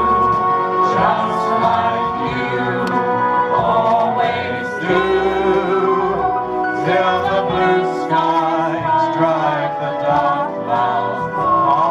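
Several voices singing a 1940s wartime song together with musical accompaniment, amplified through PA speakers.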